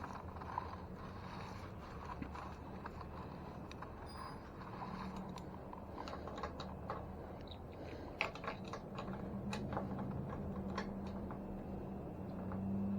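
Scattered light clicks and taps of hand tools and metal parts being handled while working on an e-bike's rear wheel and disc brake, over a faint low hum.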